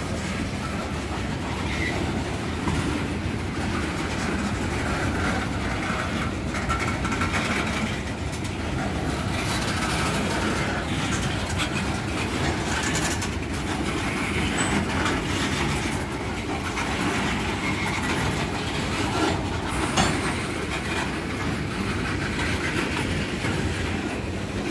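Freight cars of an FEC train rolling past at close range: a steady rumble of steel wheels on rail, with clicking over the rail joints. About 20 seconds in there is a single sharp metallic knock.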